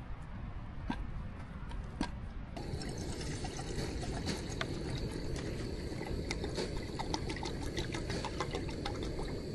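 Running water trickling and splashing, starting suddenly about two and a half seconds in, with a steady high tone over it. Before that there are a few faint knocks.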